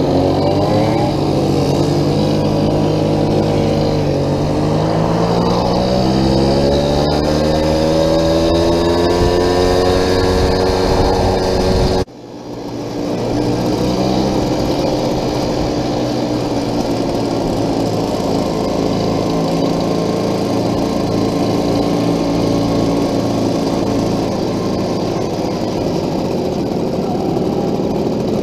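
Vintage 50cc two-stroke moped engine running under way. Its pitch dips for a few seconds, then climbs as it accelerates. The sound drops out sharply about twelve seconds in, comes back over a second or two, and then runs steadier.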